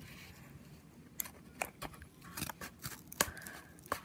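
Scissors snipping through the grips' packaging: about six sharp, irregularly spaced snips of the blades closing.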